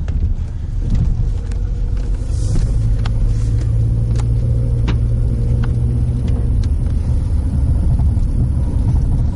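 Steady low rumble of a car driving slowly, heard from inside the cabin, with a few light ticks.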